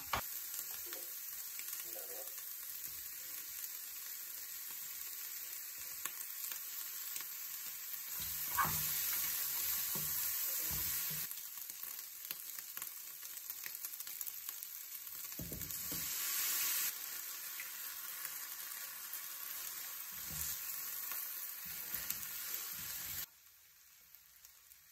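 Stir-fried rice and vegetables sizzling steadily in a hot frying pan, with occasional low knocks and scrapes. The sizzle swells louder twice for a few seconds, then drops away suddenly near the end.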